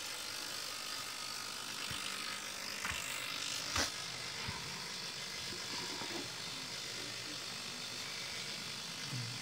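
A few light knocks and clicks from handling, the loudest near four seconds in, over a steady background hiss, as the wooden cabinet of an old Grundig valve radio is handled to show its back panel.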